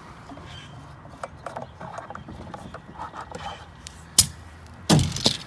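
Wooden board being handled: faint clicks and rubbing, then a sharp knock about four seconds in and a heavier knock just before the end.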